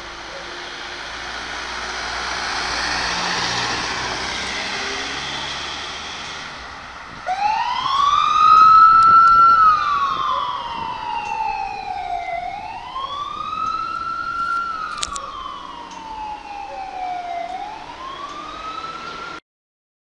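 A Mercedes-Benz ambulance van drives past close by, its engine and tyre noise swelling and fading. About seven seconds in, its siren switches on in wail mode, a slow tone rising and falling about every five seconds as the van drives off, and cuts off abruptly near the end.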